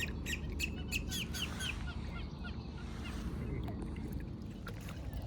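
Birds calling, a quick run of short chirps at about four a second, thinning out after the first two seconds, over a low steady background hum.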